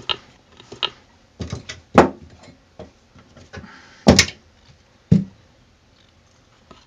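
Metal hand tools knocking and clinking against the enamel bathtub and the steel drain grate as a screwdriver is set into the drain's fixing bolt: about six separate knocks, the loudest about two seconds in and about four seconds in.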